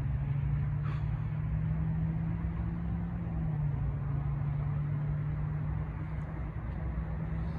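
Idling car engine giving a steady low hum, its pitch stepping down slightly about three and a half seconds in.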